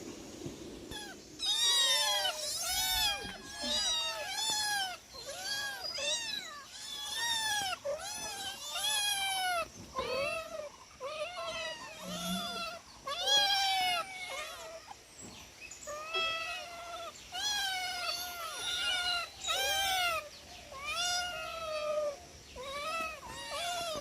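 Domestic cats meowing over and over, short rising-and-falling calls that often overlap, the begging cries of cats waiting to be fed.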